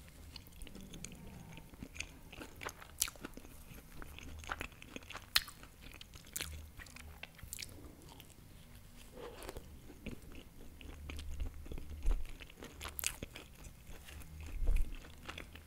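Close-miked biting and chewing of a baked empanada, with many sharp crackles from the pastry crust between bites. A couple of dull low thumps come near the end.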